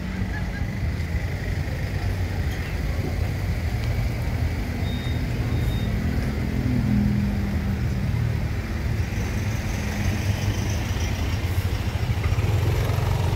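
Steady low rumble of nearby car engines and road traffic, a little louder near the end as a car with its headlights on comes up the lane.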